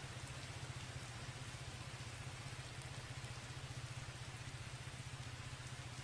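Typhoon rain falling in a steady, even hiss, with a steady low hum underneath.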